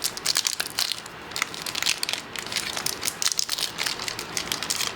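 Foil wrapper of a Pokémon booster pack crinkling and crackling as it is handled and worked open, in many quick irregular crackles.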